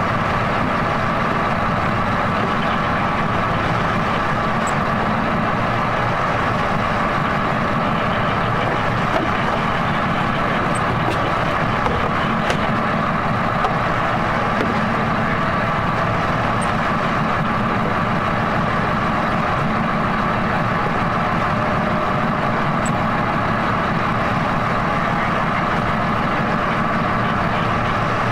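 An RNLI inshore lifeboat's engines running steadily at idle, with no change in pitch or level.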